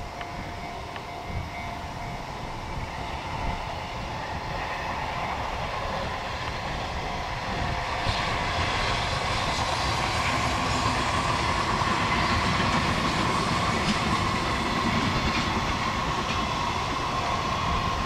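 JR Freight EF210 electric locomotive hauling a container freight train, approaching and passing at speed: the sound grows louder from about seven seconds in, then holds as the locomotive and container wagons run past on the rails. Strong wind buffets the microphone throughout.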